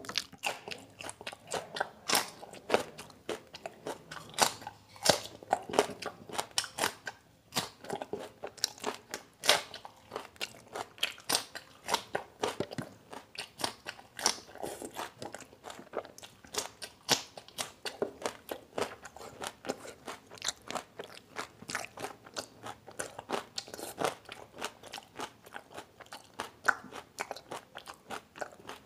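A person chewing raw green chillies close to the microphone: a steady run of crisp, irregular crunches, several a second, with a brief lull partway through.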